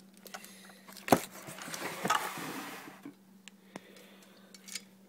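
Handling noise from the cooler kit's parts and packaging: a sharp knock about a second in, a second or so of rustling and scraping, then a few light clicks, over a steady low hum.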